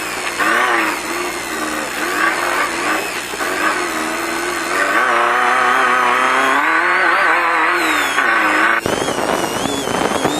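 Off-road race car's engine running hard, its pitch rising and falling with the throttle, heard from inside the car over road and wind noise. About nine seconds in, a loud, rough rattling noise takes over.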